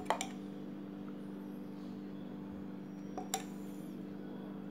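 A metal spoon clinks twice, about three seconds apart, as sauce is spooned over fried chicken wings, over a steady low hum.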